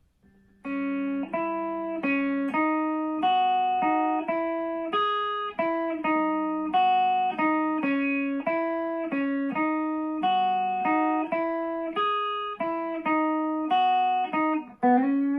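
Electric guitar playing a riff of single picked notes, about two a second, through a TC Electronic Forcefield compressor pedal with its attack knob at 12 o'clock; each note holds its level evenly. The riff ends on a note slid into and held near the end.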